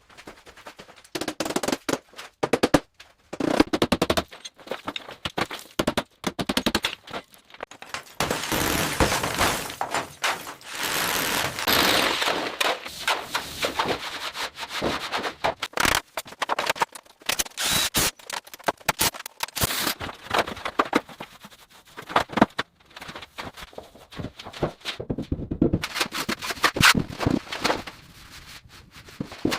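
Cleaning and repair work: rapid clicks, knocks and scrapes, with a long stretch of steady hissing noise about a third of the way in.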